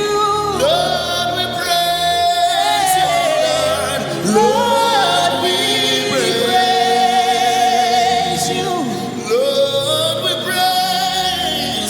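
Gospel worship music: a voice holding long notes that slide up and down between pitches, over a steady sustained instrumental backing.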